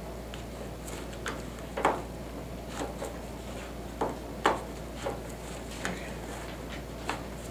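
Hands kneading and squeezing soft homemade play dough in a plastic bowl, the bowl knocking against the tabletop with short, irregular thumps about once a second.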